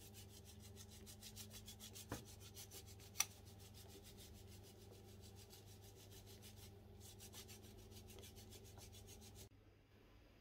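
Streusel dough being crumbled between the fingers and scattered over the pudding layer: soft, even, rhythmic rubbing with a steady low hum beneath. There is a small knock about two seconds in and a sharp tick about three seconds in, and the rubbing cuts off suddenly near the end.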